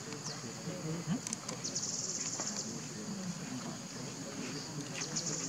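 Insects trilling steadily in a high band, with a louder, fast-pulsing trill about two seconds in and again near the end.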